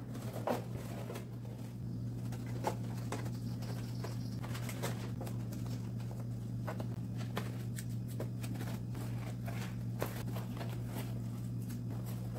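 Soft, scattered clicks and rustles of a cardboard cone being handled and fastened with masking tape, over a steady low hum.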